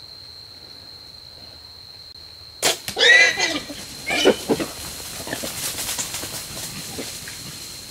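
A sharp crack from a compound bow shot about two and a half seconds in, as the arrow strikes a feral hog. The hit hog squeals loudly in several rising and falling cries, then come quick rustles and thuds as the hogs scatter.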